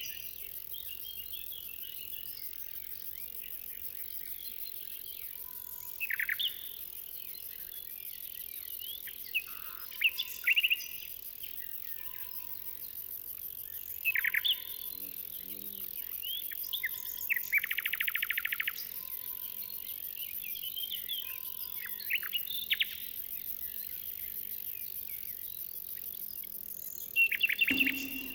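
Songbirds singing short, separate phrases every few seconds, one of them a fast trill, over a steady high insect chorus.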